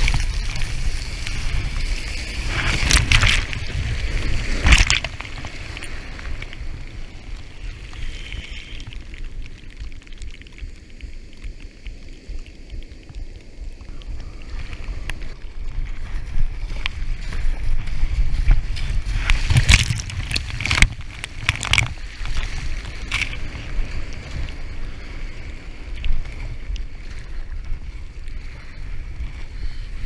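Sea surf washing and splashing around a kayak as it is paddled through breaking waves, with wind rumbling on the action camera's microphone. Several sharp splashes stand out, a pair about three and five seconds in and a cluster of three or four about twenty seconds in.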